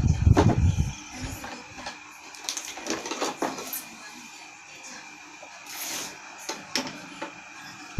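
Handling sounds: heavy low thumps about the first second, then scattered clicks, knocks and rustles, typical of parts and packaging being handled.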